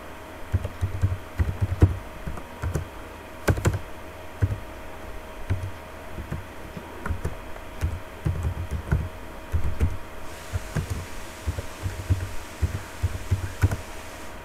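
Typing on a computer keyboard: irregular key clicks and taps, with a faint steady hum underneath.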